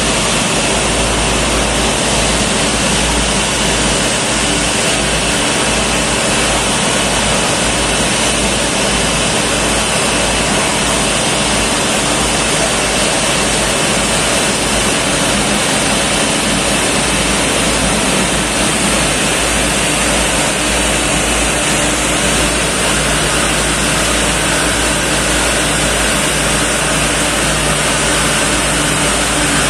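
Twin-engine jet airliner's engines running at taxi idle, a loud steady noise, mixed with the hiss of water cannon jets spraying over the aircraft.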